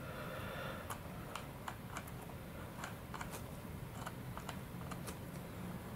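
Light, irregular clicks and taps of small parts being handled: fingers and a thin rod working at a plastic ball link on a servo push rod.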